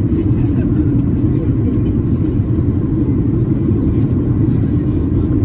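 Steady low rumble inside the cabin of a Boeing 737-800 on approach: its CFM56-7B engines and the airflow over the fuselage, with a faint steady whine above the rumble.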